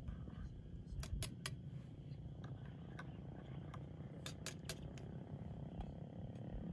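Metal spoon clinking against a stainless steel camping mug while stirring: three quick clinks about a second in and three more a little after four seconds, over a steady low rumble.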